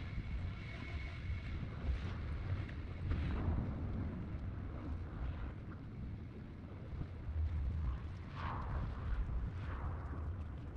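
Distant thunder rumbling low, swelling about three seconds in and again near the end, with wind buffeting the microphone.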